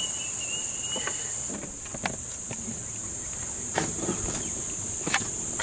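Steady high-pitched drone of insects in the riverside trees, with a few light clicks and knocks scattered through it.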